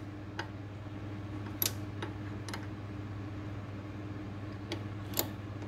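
A handful of light metallic clicks from a small ignition wrench working the lock nuts on a planer's cutter head, over a steady low hum.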